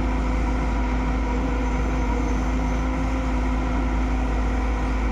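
Excavator's diesel engine running at a steady speed: a constant low drone with a steady hum.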